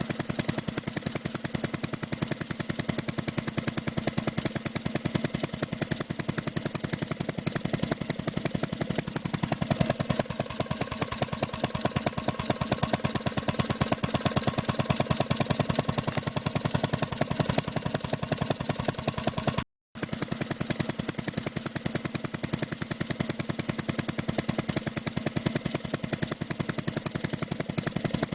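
A small engine runs steadily with a rapid, even chugging beat, driving the miniature feed-processing machine. It cuts out for an instant about two-thirds of the way through.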